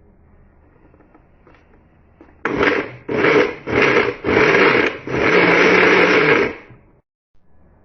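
Electric blender-type kitchen motor run in four short pulses of about half a second, then a longer steady run of about a second and a half before it stops.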